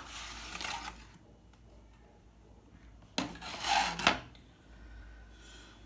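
Product packaging being handled and opened, with two bursts of rubbing and scraping: a short one at the start and a louder one a little past halfway.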